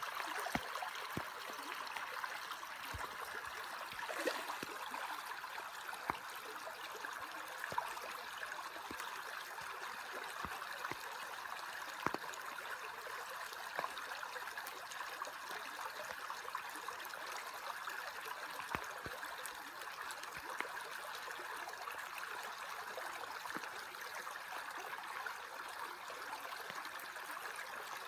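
Shallow creek water running and rippling steadily over gravel, with scattered small clicks and drips.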